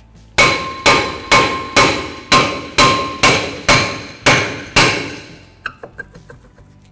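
Hammer striking a rusted cast-iron rear brake rotor on the hub, ten blows at about two a second, each leaving the rotor ringing briefly, to knock it loose from the corroded hub. A few light metallic clicks follow near the end as the loosened rotor is handled.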